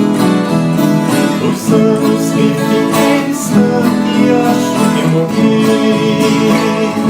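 Instrumental passage of a Brazilian country song, with acoustic guitars strummed and plucked.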